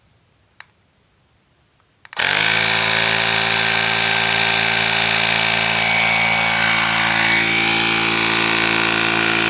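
The Tecknet cordless tire inflator's compressor starts up about two seconds in and runs with a loud, steady drone, pumping up a car tire. A faint click comes just before it, under a second in.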